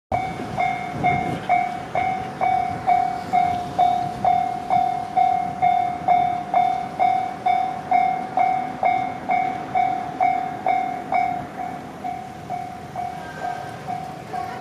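Japanese railway level-crossing warning bell ringing, an even repeated ding a little over twice a second, signalling that a train is approaching. The higher ring of each strike fades near the end.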